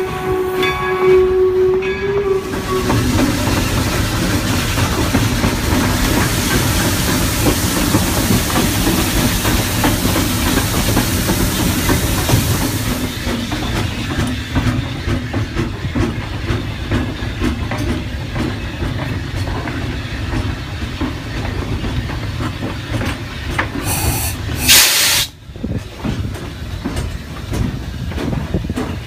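Steam locomotive whistle sounding one steady note that ends about two seconds in, then continuous steam hissing over a low rumble from the locomotive, heard from its cab. A short, loud blast of steam comes near the end.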